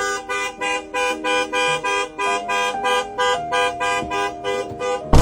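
Rapid honking, about four short honks a second, the pitch shifting from one honk to the next, cut off near the end by a sudden loud noisy blast.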